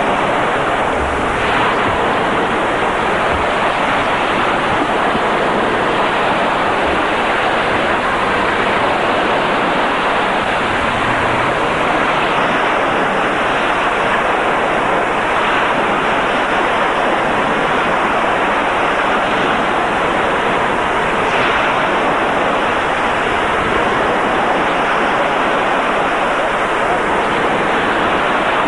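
A steady, even rushing noise of wind and water that holds the same level throughout, with no rise and fall of breaking waves.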